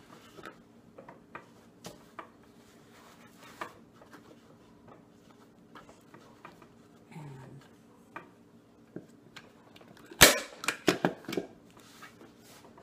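Manual staple gun firing once with a sharp snap about ten seconds in, driving a staple through upholstery fabric into a chair-seat board, followed by a few quick lighter clicks. Before that, faint rustling and small clicks of the fabric being handled and pulled tight.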